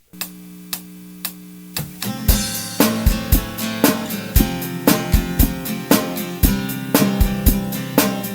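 Instrumental intro of a rock song: a held chord, then an AI-generated drum kit comes in about two seconds in with a steady beat of kick, snare, hi-hat and cymbals under the band.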